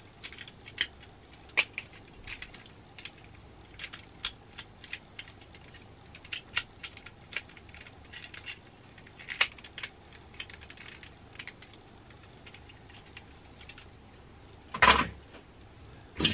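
Small toy cars clicking and clattering against each other as they are rummaged through in a box: scattered light, irregular clicks, with a louder knock near the end.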